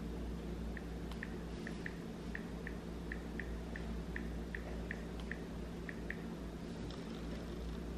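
Faint keyboard clicks from an iPhone 14 Pro Max touchscreen being typed on during setup: a quick, uneven run of short ticks, about three a second, stopping about six seconds in, over a low steady room hum.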